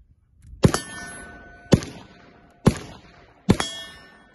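Suppressed .22 LR rifle firing single shots about a second apart, four in all with a fifth right at the end. Each shot is followed by a metallic ring.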